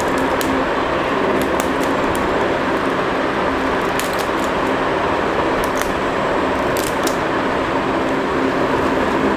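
Steady fan noise with a low hum, and a few faint light clicks.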